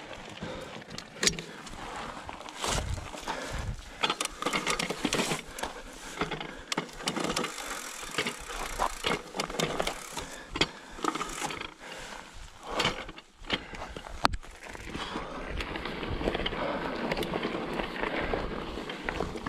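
Mountain bike rolling down a rough trail: tyres running over stones and roots, with many sharp knocks and rattles from the bike. The noise is steadier in the last few seconds.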